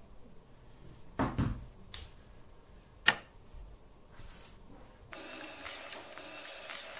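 A phone set down on a desk with a quick double knock about a second in, then one sharp click about three seconds in. From about five seconds a steadier background hiss takes over.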